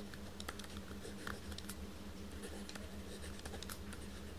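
Faint, irregular taps and scratches of a stylus writing on a tablet screen, over a steady low electrical hum.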